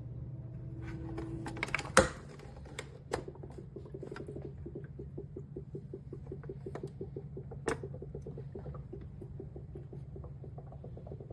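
A small machine hums steadily, with a sharp click about two seconds in and a few lighter clicks later, and a rapid, even pulsing from about four seconds in.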